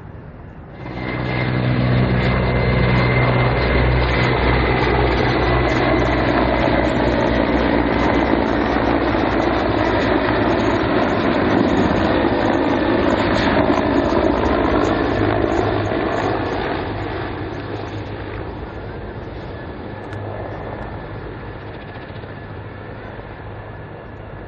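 Mil Mi-171 military transport helicopter flying past low, its main-rotor beat and turbine roar coming in abruptly about a second in, staying loud, then fading from about two-thirds of the way through as it moves away.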